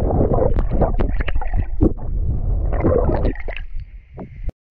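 Water gurgling and splashing close to the microphone, sounding muffled, with many short splashes and sloshes; the sound cuts out near the end.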